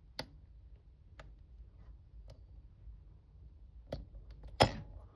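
Single-pin picking of a Smith & Locke closed-shackle padlock: a few light, sparse clicks of the pick and tension wrench on the pins, then one much louder sharp click near the end as the plug turns and the lock opens.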